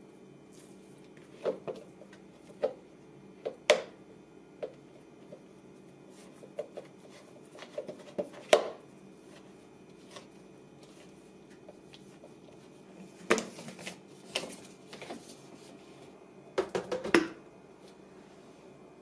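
Plastic blender cup being handled: a silicone spatula scrapes and knocks against the inside of the clear plastic cup while thick, coarsely ground almonds are stirred, in irregular knocks and scrapes. Near the end, a quick cluster of plastic clicks and knocks as the cup is set onto the blender base.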